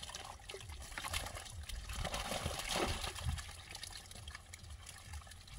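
Pond water splashing and trickling in uneven splashes, busiest from about two to three and a half seconds in.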